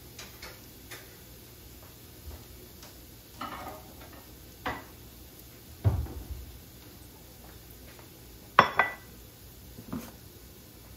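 Kitchen crockery being handled: a few separate knocks and clinks, a dull thump near the middle, and the loudest, a sharp clank about three quarters of the way through, as a white ceramic bowl is set down on the counter. A faint steady hiss lies underneath.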